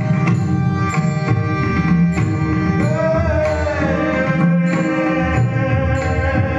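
Devotional bhajan music with mridang drum strokes under a singer holding one long, bending note about halfway through.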